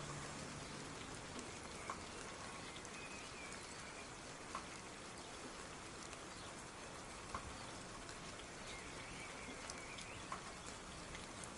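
Soft, steady rain hiss with single louder drips landing every few seconds.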